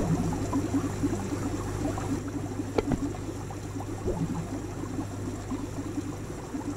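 Aquarium aerator bubbling steadily, the air stream breaking into many small bubbles over a low steady hum. A single light tap sounds near the middle.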